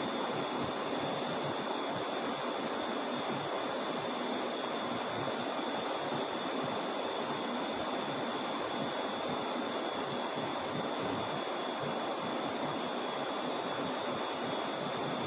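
River water rushing steadily, the river running high after a flood, with two thin steady high-pitched tones above it.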